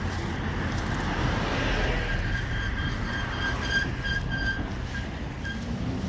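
Steady rumble and road noise of a car being driven, with a run of about ten short high-pitched beeps in its middle.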